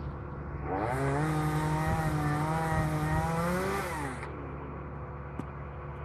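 Chainsaw revved up about a second in and held at high speed for about three seconds, then falling back, over a steady lower engine hum.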